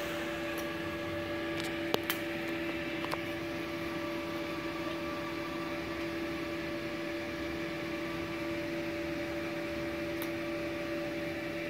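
DC TIG welding on thin stainless steel plate with a Multipro TIG 200A-SA inverter at about 90 amps under argon: a steady hum and hiss while the arc burns, with a few sharp clicks in the first three seconds.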